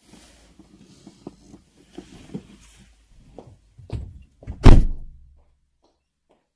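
Rustling and small knocks of someone settling into a car, then a car door shutting with one loud thud about four and a half seconds in.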